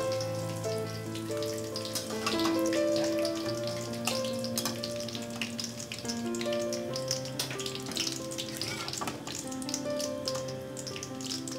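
Hot oil sizzling and crackling in a wok as fried croquettes drain in a wire strainer above it, with many small pops. Background music plays over it throughout.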